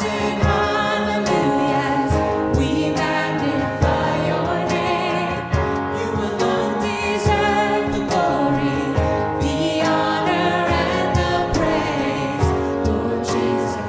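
Worship music: voices singing together over a band, with drum hits keeping the beat.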